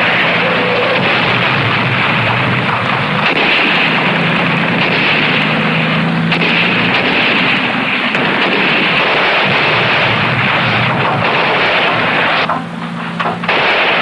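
Battle sound effects: jeep engines running hard under a continuous din of gunfire. It drops off briefly near the end.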